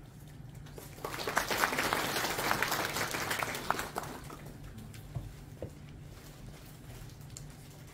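Applause: a group clapping, starting about a second in and dying away after about three seconds.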